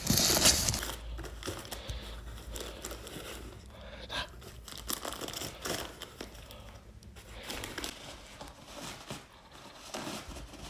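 A dog rummaging through gift wrap and a cardboard box: irregular crinkling and tearing of wrapping paper and rustling cardboard, loudest in the first second.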